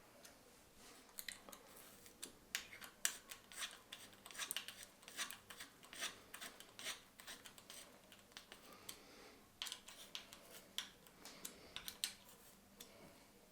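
Quiet, irregular clicks and scrapes of hand work on electric scooter parts, coming in quick clusters of several a second at times.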